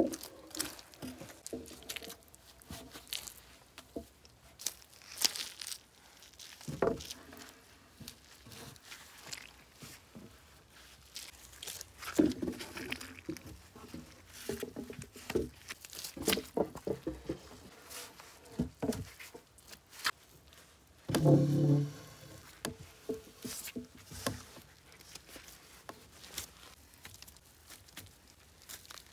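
Handling sounds of log-wall building: clumps of moss torn and pressed into the gaps between stacked logs, with footsteps on bare earth and scattered knocks. About 21 seconds in comes a heavier thump lasting about a second, the loudest sound.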